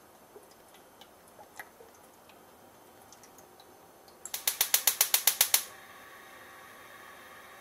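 A few faint taps, then a gas stove burner's igniter clicking rapidly, about a dozen clicks in just over a second. The burner then catches and its flame keeps up a steady hiss.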